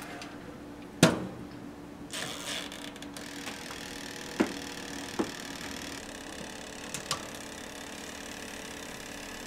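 Toshiba toaster oven being handled: a loud clack as the metal door shuts about a second in, a short scraping rattle, then a few sharp metal clicks, one pair close together near the end, over a steady low hum.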